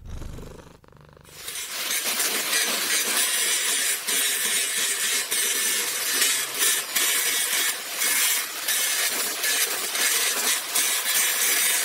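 Angle grinder grinding down a fresh weld seam on a steel chair-frame tube, cleaning up the weld before a second pass. It starts about a second in and runs as a loud, steady grind that dips now and then as the pressure on the disc changes.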